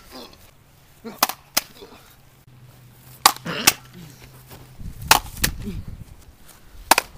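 Plastic toy swords clacking together in a mock sword fight: sharp hard strikes in quick pairs, about every two seconds, with a single strike near the end.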